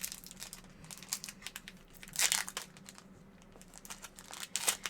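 Pokémon card packaging crinkling in irregular crackles as it is handled and unwrapped: foil booster pack and plastic blister. The loudest crackle comes about two seconds in, and another near the end.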